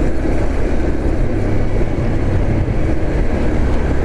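Honda CB Twister single-cylinder motorcycle engine running steadily at a relaxed cruise, with wind rushing over the microphone.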